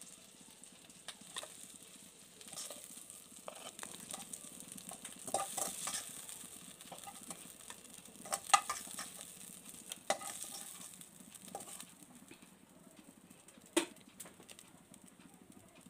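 Prawns sizzling in hot oil in a pan while a utensil scrapes and knocks against the pan, lifting the fried prawns out. There are several sharp clinks, the loudest about eight and a half seconds in, and the sizzle thins out near the end.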